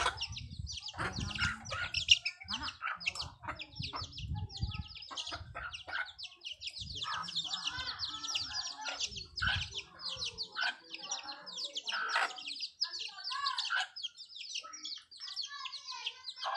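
Continuous rapid high-pitched bird chirping, with a hen clucking in the middle of the stretch. There are low knocks and rumbles in the first ten seconds or so.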